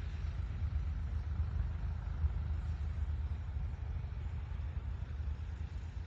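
A steady low rumble with little above it, flickering in loudness.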